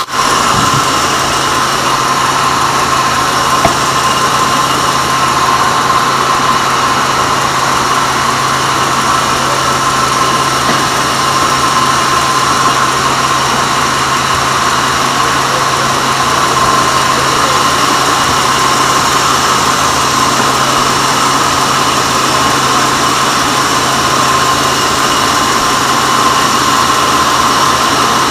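Sawmill bandsaw running steadily: a constant mechanical hum with a steady high whine, unchanging throughout.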